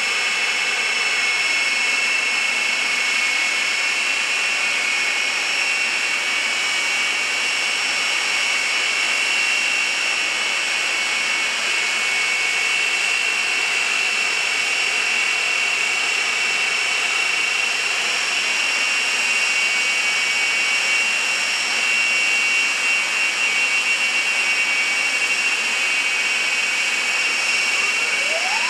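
Twin Rolls-Royce Bristol Viper jet engines of the Aftershock jet fire truck running steadily, a constant rushing roar with a high whine. Near the end a siren starts winding up in pitch.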